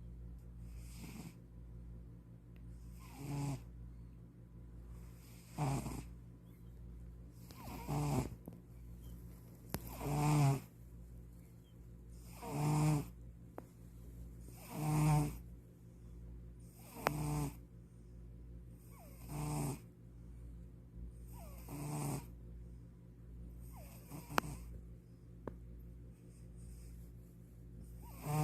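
Domestic cat snoring in its sleep, one short rasping snore about every two and a half seconds, the snores loudest near the middle.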